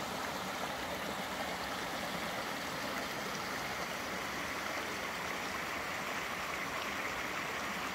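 Small rocky mountain creek running over stones and fallen logs: a steady rush of water.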